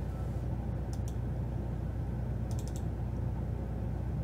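A few short clusters of computer mouse and keyboard clicks, about a second in and again near two and a half seconds, over a steady low hum.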